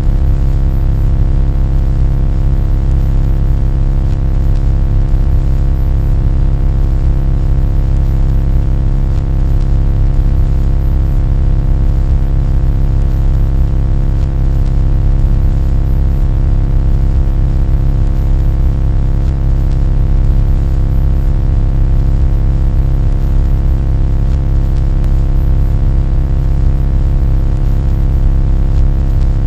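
A loud, unbroken droning noise, heaviest in the deep low end, with many steady tones stacked above it and no change in pitch or rhythm.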